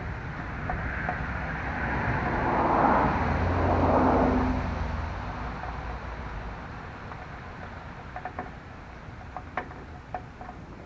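A vehicle passing by, growing louder to a peak about three to four seconds in and then fading away, followed by faint scattered clicks.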